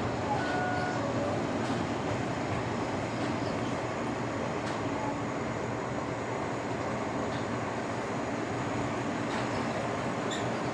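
Steady running noise of a Kanto Railway Joso Line diesel railcar heard from inside the car: an even rumble of engine and wheels on the rails, with a few faint clicks.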